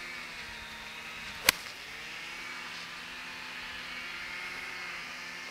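A golf iron striking the ball once, a single sharp click about a second and a half in. A steady faint hum runs underneath.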